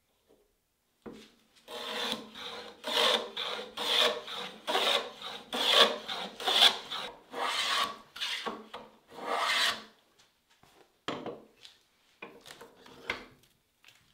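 Metal hand plane shaving a strip of wood held in a vise, in quick repeated strokes at about two a second. The strokes pause near the ten-second mark, then a few more follow.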